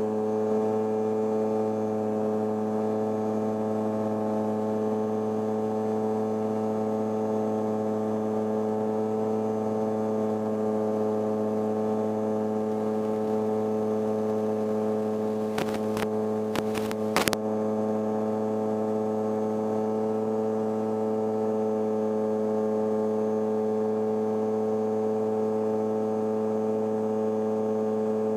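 Light aircraft's piston engine and propeller at takeoff power during the takeoff roll and climb-out, a steady drone that holds one pitch. A few brief clicks about sixteen seconds in.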